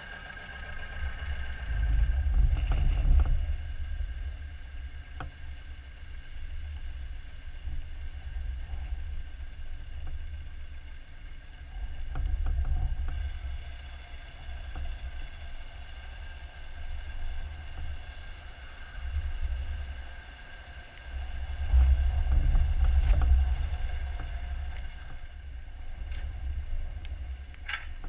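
An old farm tractor's engine running as the tractor carries a heavy load slowly on its forklift mast; a deep uneven rumble that swells louder about two seconds in and again about twenty-two seconds in.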